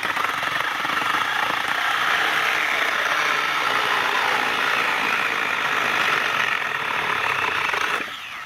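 Milwaukee cordless mini chainsaw cutting through pallet wood under load, its chain running steadily through the board, then stopping about eight seconds in.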